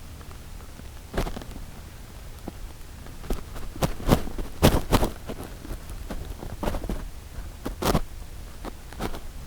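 Irregular soft clicks and rustles from a Shiba Inu close to the microphone, coming thickest from about three to eight seconds in, over a faint low background rumble.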